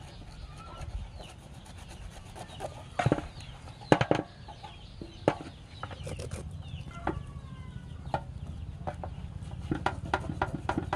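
Knife scraping the scales off a snake's skin against a metal basin: a run of irregular scrapes and knocks, the loudest a few seconds in. Chickens cluck in the background.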